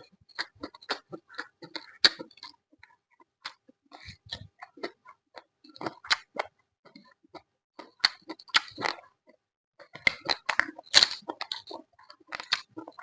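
A person chewing food close to the microphone, with many irregular crisp crunches and crackles that come thickest and loudest in the second half.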